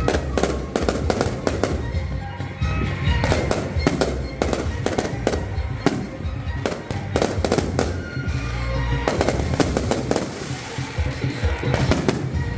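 Aerial fireworks going off in rapid succession: a dense series of sharp bangs and crackles with no pause, over a low rumble, with music playing underneath.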